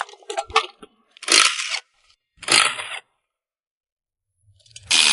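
Metal parts clinking, then three separate scraping noises of about half a second to a second each, with a quiet gap before the last, as a car engine and transmission are taken apart.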